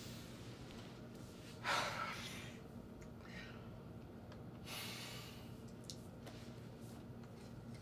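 A person breathing out hard: a sharp sigh about two seconds in, fading away, and a longer exhale near five seconds, over a steady low room hum.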